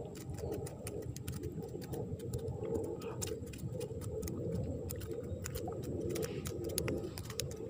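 Irregular clicking and ticking from live shrimp flicking about in a mesh keep net at the water's edge, over a steady low rumble.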